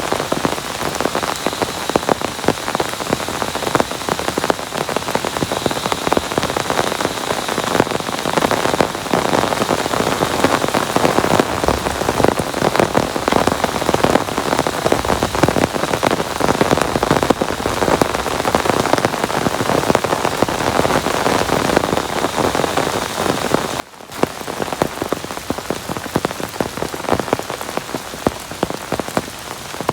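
Heavy rain falling, a dense steady patter of many drops striking. It breaks off for an instant about 24 seconds in, then carries on a little quieter.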